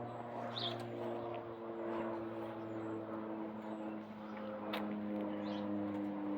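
A steady engine drone whose pitch drifts slowly over several seconds, with a couple of short bird chirps.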